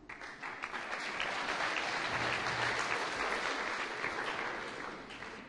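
Audience applauding, starting suddenly, building to a full round and then dying away near the end.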